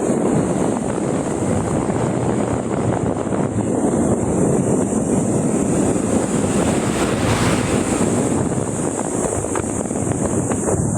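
Wind rushing over the microphone while riding, with a vehicle engine running steadily underneath.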